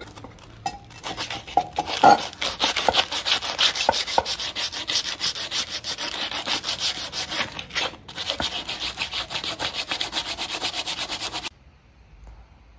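Sandpaper rubbed by hand in rapid back-and-forth strokes over the aluminium gasket face of a BMW E36 differential cover, scrubbing off old paper-gasket residue. There is a short pause about eight seconds in, and the sanding stops abruptly near the end.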